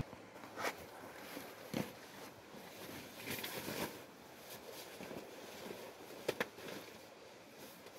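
Soft rustling and a few short clicks and taps from a person moving about and handling canvas and cloth at a tent's entrance, with a sharp double tap a little past six seconds in.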